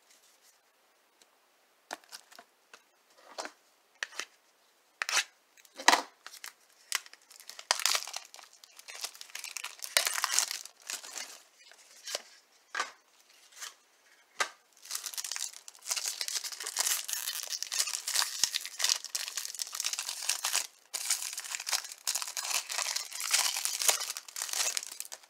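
Foil trading-card pack wrapper being torn open and crinkled by hand: scattered crackles at first, then dense continuous crinkling for most of the second half.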